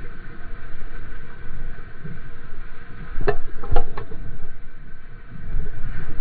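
Water rushing and churning around a surfboard riding a breaking wave, heard up close from the board's nose with a fluctuating rumble of wind and water on the microphone. A few sharp knocks come in a quick cluster about three to four seconds in.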